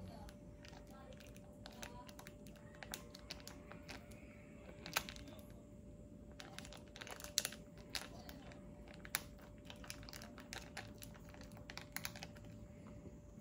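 A run of light, irregular clicks and taps of uneven strength, with a few sharper ones, over a faint steady hum.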